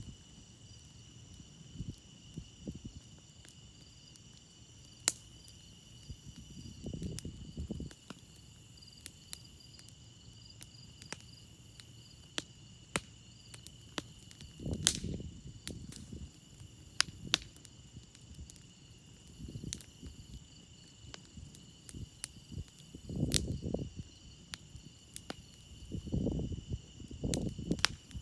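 Campfire crackling with sharp, irregular pops, over a steady chorus of crickets chirping. A few low rushing swells come and go, around a quarter, half and three-quarters of the way through.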